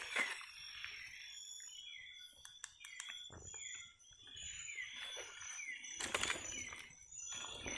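Tropical rainforest at night: insects sounding a steady high-pitched drone, with a repeated short falling chirp about every half second and scattered clicks and rustles close by.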